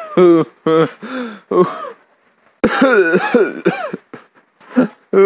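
A voice coughing and clearing its throat in short bursts, with a brief pause about two seconds in.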